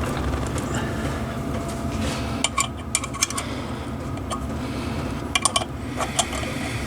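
Hand tools clinking on metal: the tap and tap handle being worked and handled against an aluminium motorcycle primary case, a series of sharp separate clinks with a short ring, over a steady low hum.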